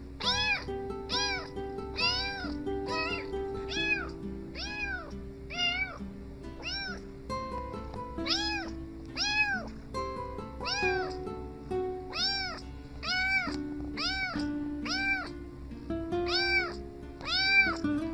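A tabby kitten meowing over and over: short, high meows about once a second, each rising and then falling in pitch. Background music with held notes plays underneath.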